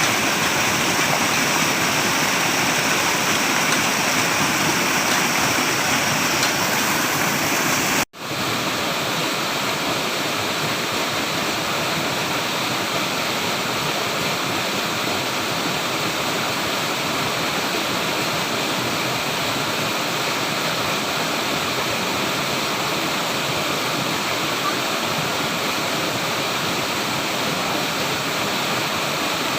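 Flowing water rushing steadily, like a stream or small waterfall. About eight seconds in the sound cuts out for an instant and comes back slightly quieter, with less hiss.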